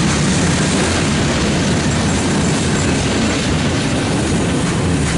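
Freight train cars rolling past close by, a centerbeam lumber flatcar and then gondolas, their steel wheels running on the rails with a steady, loud rumble.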